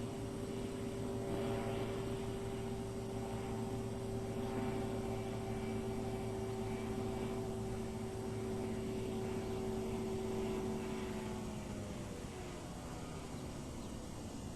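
Titan Tornado light aircraft's engine and propeller droning steadily in flight, heard from the ground; the pitch drops about twelve seconds in.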